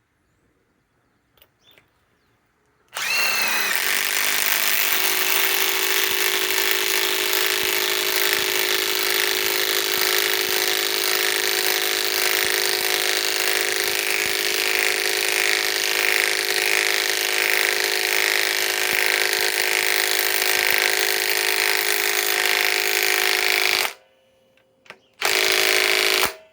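Milwaukee M18 Fuel 3/8-inch compact impact wrench (2854-20) driving a 4-inch fastener. It runs steadily for about twenty seconds, stops, then gives one short final burst of about a second near the end.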